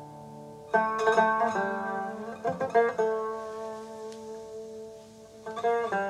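Solo bağlama (long-necked Turkish saz) playing an unaccompanied opening: a phrase of plucked notes about a second in, the notes ringing on and fading, then another short phrase near the end.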